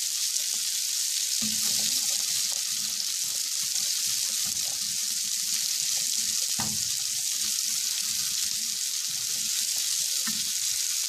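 Peas, carrot strips and green pepper sizzling steadily in melted butter in a nonstick frying pan, with the soft scrape of a silicone spatula stirring them.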